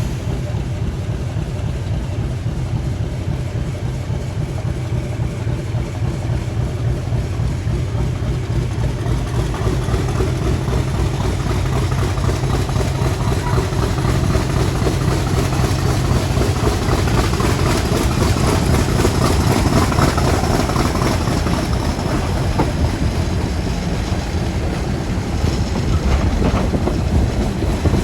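Class 50 diesel locomotive 50026's English Electric 16-cylinder engine working steadily under power, slowly growing louder towards the middle, with a faint high whine above it.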